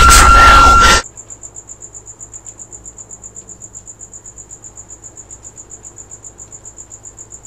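Crickets chirping in a fast, even, high pulse. Loud, noisy music in the first second cuts off suddenly before the chirping takes over.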